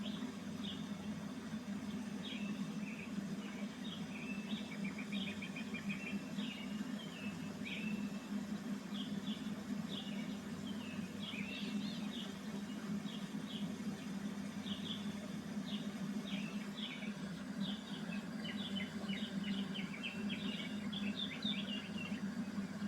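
Small songbirds chirping and trilling in quick, short phrases throughout, over the steady low rush of a waterfall.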